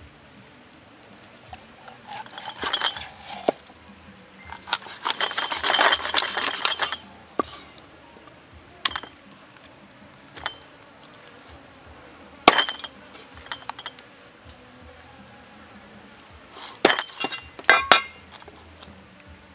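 Cleaver chopping through a raw chicken onto a wooden chopping block: sharp chops and knocks, some in quick clusters and some single, the loudest a single chop about two-thirds of the way in.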